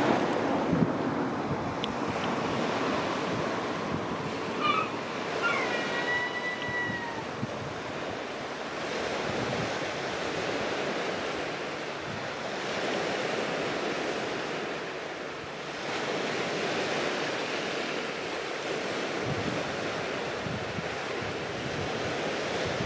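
Sea surf washing onto the beach, its rush swelling and easing every few seconds, with wind. About five seconds in there is a short high call: a few chirps, then a held, slightly falling note.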